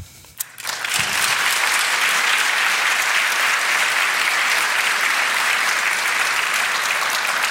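Audience applauding, starting about a second in and keeping up steadily.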